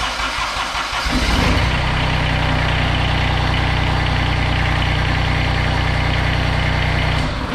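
Kubota ZD326 zero-turn mower's three-cylinder diesel engine being started: it cranks and catches about a second in, runs steadily, then is shut off near the end. It is run briefly after an oil change so the new oil filter fills.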